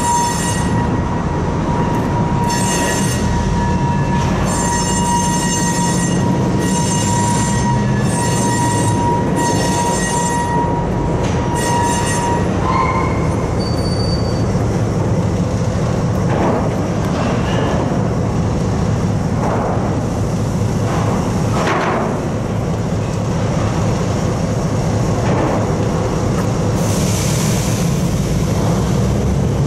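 EMD NW2 switcher locomotive moving slowly with a steady high-pitched wheel squeal that stops about twelve seconds in as it comes to a halt. After that its V12 diesel idles with a low rumble, along with road traffic and a brief hiss near the end.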